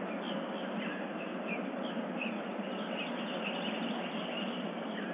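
Scattered short bird chirps over a steady hiss, heard through a low-quality security-camera microphone.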